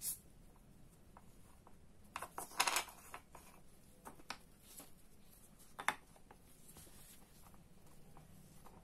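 Small parts of a disassembled fishing reel being handled and set down on a wooden tabletop. A light click comes at the start, then a short clatter of knocks about two seconds in, then a few single clicks and faint handling noise.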